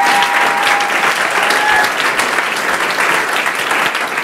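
Audience applauding, a dense steady clatter of many hands clapping, with a voice or two calling out early on.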